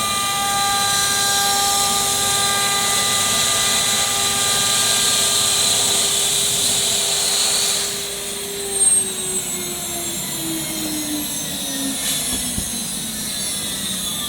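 CNC wood router spindle running with a steady high whine and hiss of cutting. About eight seconds in the cutting noise drops away, there is a brief louder burst, and the spindle's whine falls steadily in pitch as it spins down.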